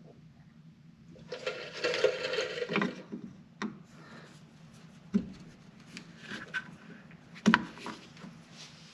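A screwdriver prying at the plastic bearing dust cover of a snowmobile rear-suspension idler wheel: a scraping that lasts about a second and a half, then several separate sharp clicks and knocks.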